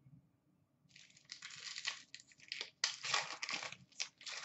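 Foil wrapper of an Upper Deck SP Authentic hockey card pack crinkling and rustling in the hands, in a run of bursts starting about a second in.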